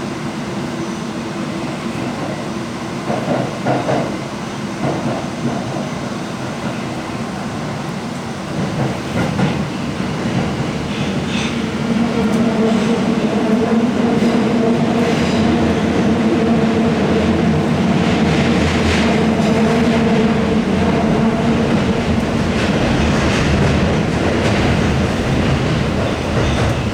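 Running noise inside a Tokyo Metro 1000 series subway car: wheels on rail with scattered clicks over rail joints, and the steady tones of its Toshiba PMSM traction motors and IGBT inverter. It grows louder about halfway through.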